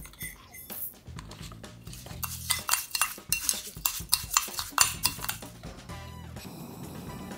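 Metal spoon stirring in a small ceramic bowl, clinking and scraping quickly and repeatedly as it mixes sesame seeds, sesame oil and salt. A brief run of rapid clicks follows near the end.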